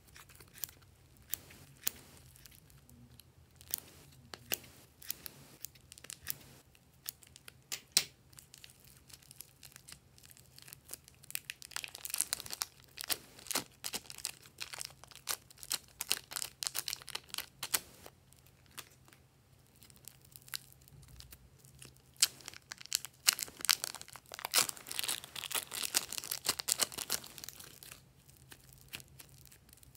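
Plastic packets of foam clay crinkling as they are snipped with scissors and peeled open, with scattered sharp clicks at first. In the second half come two long stretches of dense crackling and tearing as the clay is pulled out of its wrappers and torn apart.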